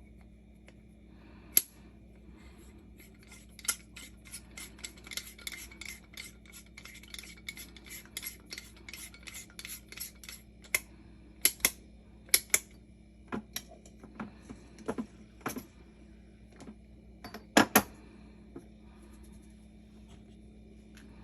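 Small metal and ceramic utensils clinking and rubbing while coffee is prepared: a quick run of light ticks for several seconds, then a few sharper clinks, with two loud clinks near the end.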